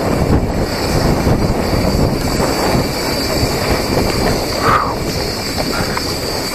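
Mountain bike riding down a dirt singletrack, picked up by an action camera mounted on the bike: a steady rush of wind on the microphone mixed with tyre rumble and rattling over the rough ground.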